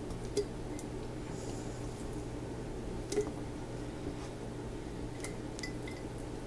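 A few light clicks and taps of kitchen tongs against a glass canning jar as cooked chicken pieces are packed into it, the loudest about three seconds in, over a steady low hum.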